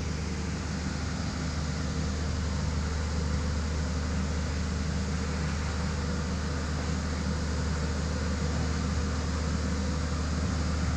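Vibratory road roller's diesel engine running steadily, a constant low drone with a few steady tones above it.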